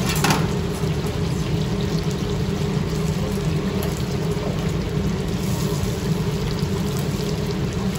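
Hot oil in a deep fryer bubbling and hissing steadily as battered chicken skewers fry, over a steady low rumble, with a short clatter right at the start.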